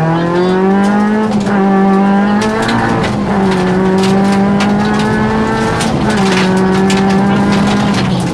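Rally car engine heard from inside the cabin, held at high revs on a stage: the pitch climbs in the first second, then stays high with short dips three or four times. Sharp clicks and knocks sound throughout, busier after about two and a half seconds.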